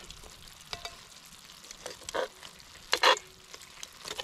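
Metal tongs clinking and scraping against a cast iron Dutch oven and an enamel plate as pieces of pot roast are lifted out. It comes as a few separate clicks, the loudest about three seconds in.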